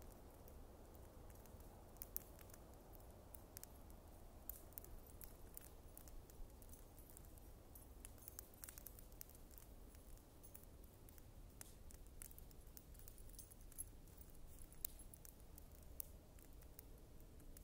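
Bonfire crackling quietly, with irregular sharp snaps and pops over a faint low rumble.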